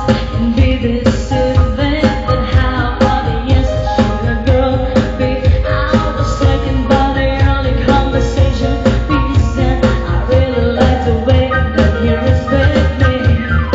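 Recorded pop song playing loudly: singing over a steady, driving dance beat.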